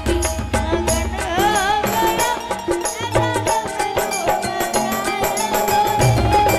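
Indian devotional folk music from a bhajan performance: a wavering melodic line played over fast, steady percussion, with no words sung.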